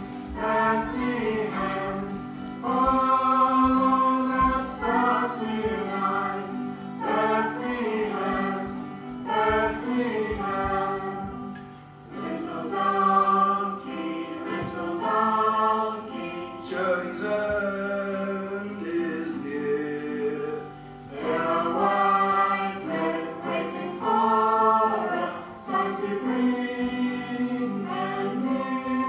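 A choir singing a song with musical accompaniment.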